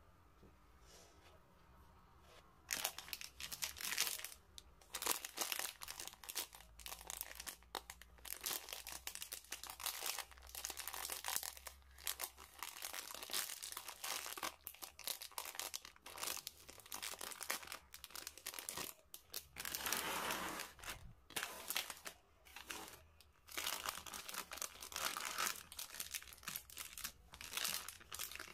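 Plastic snack bag of KitKat Mini Eggs crinkling as it is handled and torn open at the top, a dense irregular crackle starting about two and a half seconds in.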